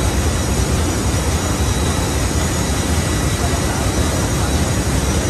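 Ship's engine-room machinery running: a loud, steady drone with a deep hum underneath and a few faint steady whines above it.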